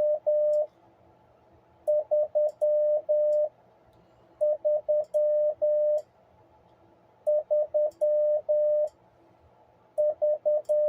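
CW sidetone from an ICOM IC-7300 transceiver, keyed with an iambic paddle: a single steady beep sent as Morse code numerals, each group a run of short dits followed by long dahs. Four full groups come about every two and a half seconds, with the tail of another at the start.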